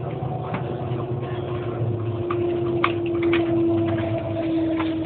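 Cabin noise of the Shanghai Maglev train running: a steady low hum with a held whine whose pitch sinks slightly, and a few scattered light clicks and rattles.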